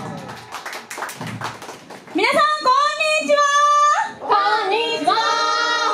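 Scattered hand claps, then girls' voices singing out together without accompaniment, in long drawn-out notes, one held steady for over a second.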